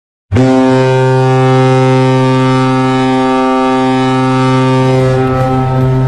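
Ice hockey goal horn sounding one long, steady, low-pitched blast that starts suddenly just after the beginning.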